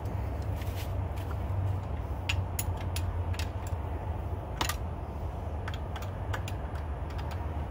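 Ratchet wrench clicking in short, irregular runs as it undoes the lower-unit bolts on a Yamaha F115 outboard, over a steady low hum.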